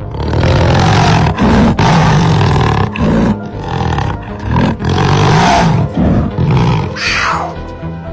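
A lion roaring, a run of loud calls about a second long each, over background music. Near the end comes a shorter call that falls in pitch.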